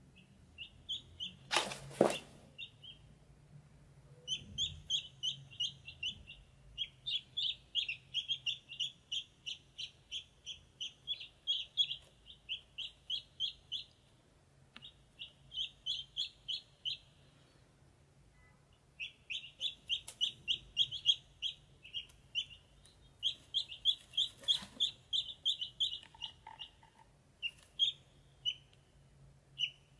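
Ducklings peeping in long runs of quick, short, high chirps, pausing for a few seconds around the middle. A single sharp knock comes about two seconds in.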